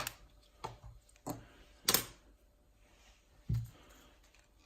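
A few light clicks and knocks of small objects being picked up and handled, the sharpest about two seconds in, with a duller thump a little later.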